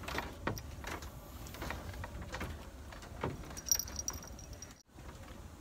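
Faint clicks and rattles of a fishing rod and reel being worked as a hooked fish is reeled in, with one brief high ringing note about four seconds in, over a steady low rumble.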